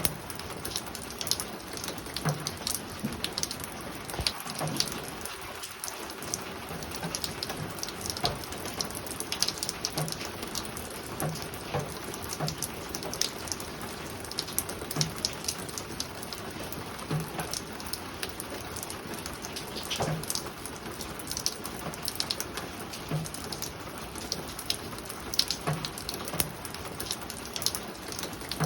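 Steady spring rain falling on a roof, with individual drops ticking irregularly over an even hiss.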